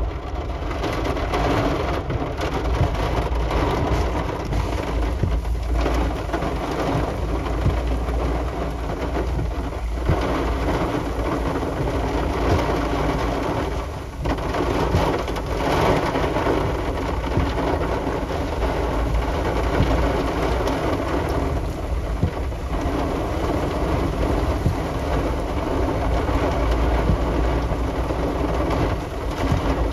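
Heavy thunderstorm rain: a steady downpour with low rumbling underneath that swells in places.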